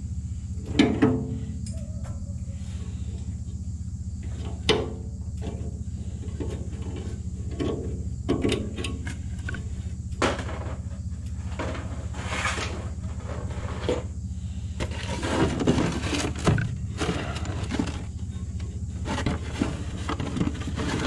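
Scattered clicks, taps and knocks of a hand tool and fingers working at the clogged fuel outlet under an old steel fuel tank, over a steady low hum.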